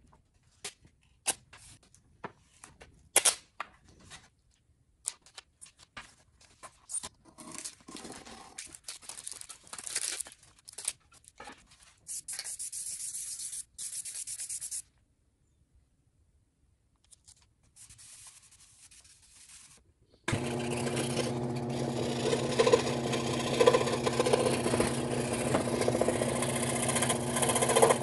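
Scattered scrapes, rubs and clicks on a wooden disc, then two bursts of aerosol spray-paint hiss. About twenty seconds in, a WEN electric scroll saw starts up and runs with a steady hum, its blade cutting a plywood disc.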